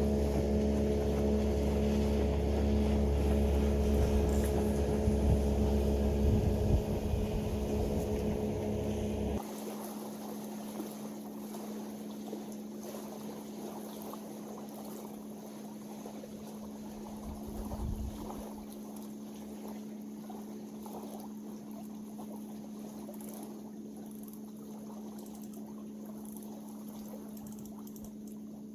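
A motor runs steadily with a low, even drone, then stops abruptly about nine seconds in, leaving a faint steady hum and light background noise.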